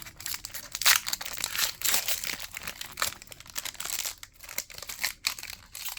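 Foil wrapper of a Pokémon trading card booster pack being torn open and crinkled by hand: a run of irregular crackles and rustles.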